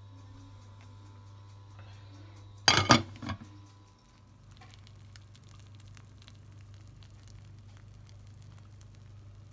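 Chocolate lava cake mixture bubbling and crackling softly as it cooks in a slow cooker, over a low steady hum. About three seconds in, a brief cluster of loud clinks and knocks from the slow cooker's glass lid being handled.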